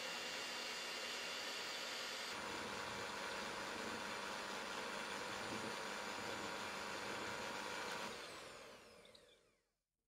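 Electric hand mixer running steadily, its twin beaters whipping cream in a stainless steel bowl up to soft peaks. About eight seconds in it is switched off and its whine falls in pitch and fades as the motor spins down.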